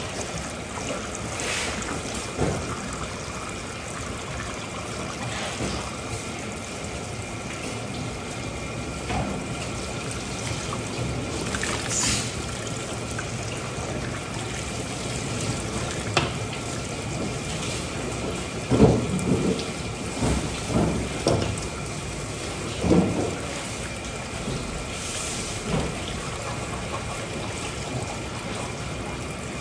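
Water running steadily, like a tap or hose left on, with several short thuds of handling about two-thirds of the way in.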